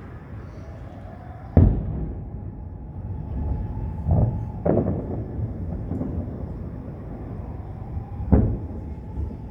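Aerial firework shells bursting with deep booms over a steady low rumble: four sharp bursts, the loudest about a second and a half in, two close together near the middle, and one near the end.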